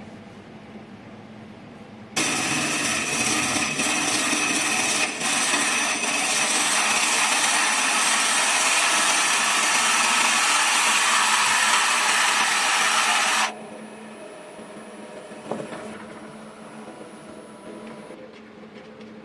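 Drill bit fed from the lathe's tailstock boring into the end grain of a spinning monkey puzzle wood blank: a loud, steady cutting hiss that starts about two seconds in and stops abruptly about thirteen seconds in. After it there is a faint high whine and a single knock.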